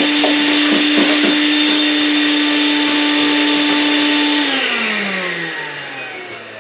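Vacuum cleaner running with a steady whine, then switched off about four and a half seconds in and winding down, its pitch falling as it fades.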